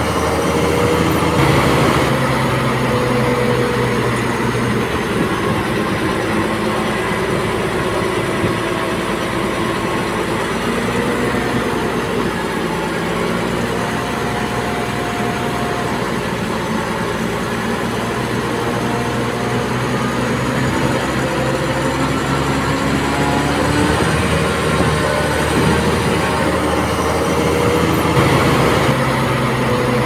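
Heavy diesel earthmoving machinery running steadily, its engine note slowly rising and falling.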